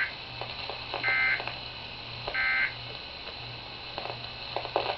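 Weather radio digital alert data (SAME) bursts: three short, identical buzzy bursts about a second apart, then a radio channel hissing faintly with a steady low hum.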